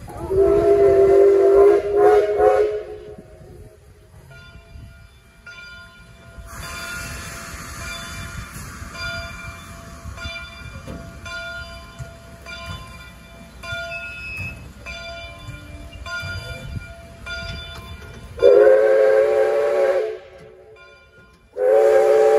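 Steam whistle of Canadian Pacific 2-8-0 steam locomotive 3716, a chime of several steady tones: one long blast at the start, then two shorter blasts near the end. Between them comes a quieter hiss of steam and running train noise.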